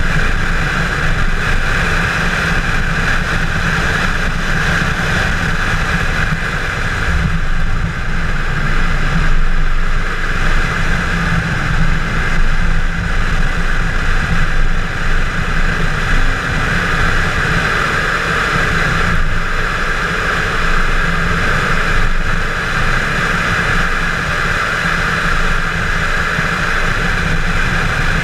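Chevrolet Camaro 1LE at speed on a road course: engine, wind and tyre noise heard from inside the cabin, loud and steady.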